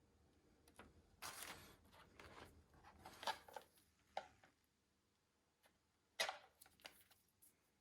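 Handling noises: rustling and scraping for about two and a half seconds, then a few sharp clicks and knocks.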